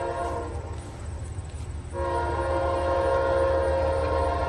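Locomotive air horn sounding a multi-note chord: one blast cuts off just after the start, and a second, longer blast begins about two seconds in and holds. A steady low rumble runs underneath.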